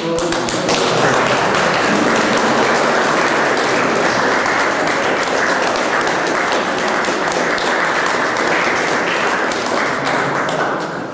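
A small seated audience applauding with steady clapping, dying away near the end.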